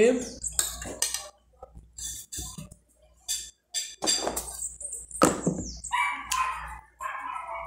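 Close-up eating sounds: chewing and mouth noises, with sharp clicks of a metal spoon against a glass bowl. There are a few brief high squeaks and some murmuring in between.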